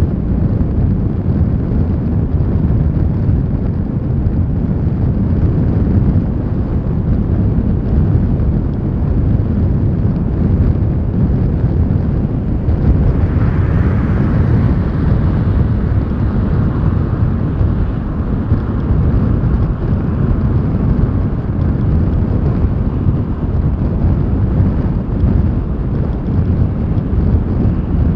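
Road and wind noise picked up outside a car driving at speed: a steady low rumble. About halfway through, another car passes alongside, adding a rising and then fading tyre hiss.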